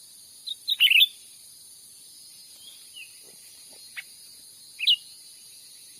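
Cucak ranting calling: a quick cluster of sharp chirping notes about a second in, a few fainter single notes, and a sharp two-note call near the end. A steady high-pitched insect drone runs underneath.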